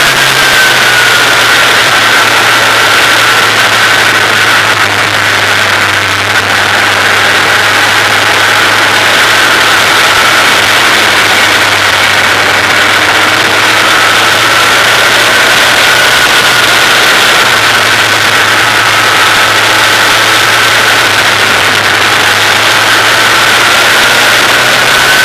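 Formula 2000 open-wheel race car's engine running at speed, heard from an onboard camera, with its pitch dipping and rising gently over a steady rush of noise.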